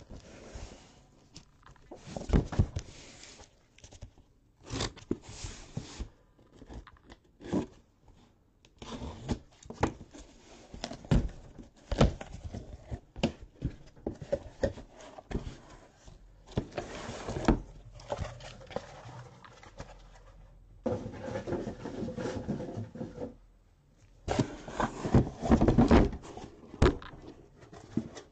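A cardboard shipping case being opened by hand and its sealed card boxes taken out: irregular knocks and thumps of cardboard, with rustling and a few longer scrapes.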